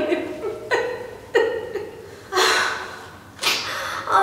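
Women sobbing and wailing in about four separate bursts, with noisy gasping breaths between them.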